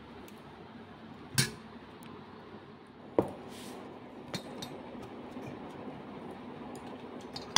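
Stainless steel plates and bowls clinking now and then as food is served and eaten by hand, with two clearer knocks about a second and a half and three seconds in and a few lighter taps later.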